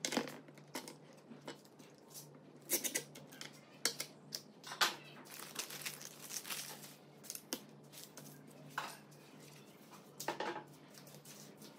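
Plastic bags of cabinet-hinge hardware crinkling and small metal hinge parts clinking as they are handled, in irregular short bursts with a longer run of rustling in the middle.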